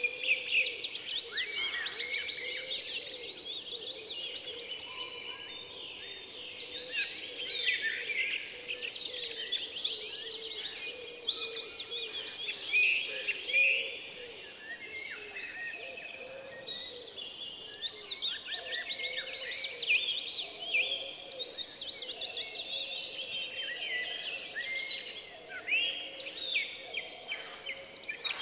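A dense chorus of many small songbirds chirping and twittering without a break, with fast trills and the loudest singing about twelve seconds in.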